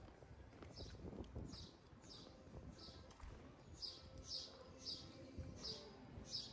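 A small bird chirping over and over, each chirp short and falling in pitch, about two a second, faint, over a low rumble.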